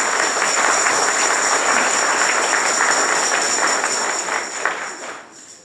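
Audience applauding in a large hall, a dense clapping that holds steady and then dies away near the end.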